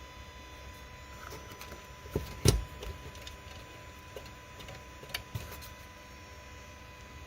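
A few sharp clicks and knocks over a steady hum: two close together about two seconds in, the second the loudest, and another pair about five seconds in.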